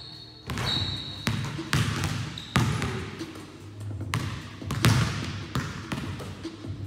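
Several basketballs bouncing on a gym floor: a string of irregular thuds, echoing in the large hall, with a brief high squeak near the start.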